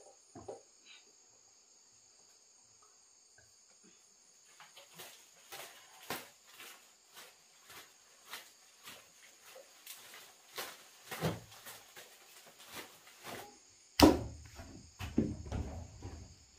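Insects chirring steadily, with irregular light knocks about twice a second starting about a third of the way in. Near the end comes one loud thump, followed by low rumbling noise.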